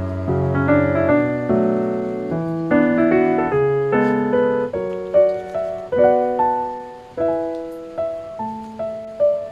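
Background music: a soft piano melody, notes struck one after another and left to ring out.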